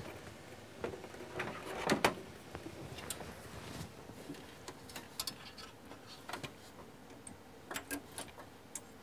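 Scattered clicks and knocks from the Behringer Europower PMP6000 powered mixer's top panel being set back onto its metal chassis and fitted by hand, the loudest knock about two seconds in.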